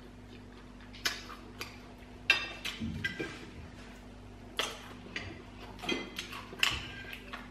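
Mouth sounds of someone eating fried chicken with their hands: a scattered string of sharp wet smacks and clicks from chewing and licking fingers. A faint, steady low hum runs underneath.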